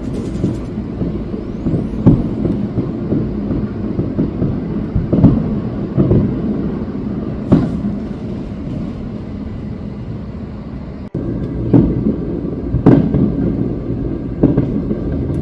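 Aerial fireworks shells bursting in a string of deep booms, one every second or two, over a steady low rumble.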